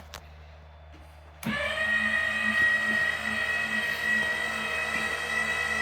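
A small electric motor starts about one and a half seconds in and runs at a steady high-pitched whine.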